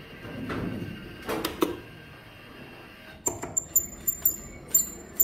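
Arcade claw machine in play: a couple of soft knocks, then from about three seconds in a quick, irregular run of sharp clicks with short high-pitched beeps.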